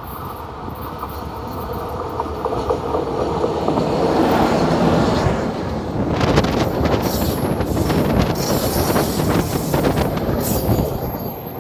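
An electric-locomotive-hauled passenger train passes close by. Its rumble grows louder for the first few seconds, then the coach wheels clatter over the rail joints as the carriages roll past, with a thin high wheel whine near the end.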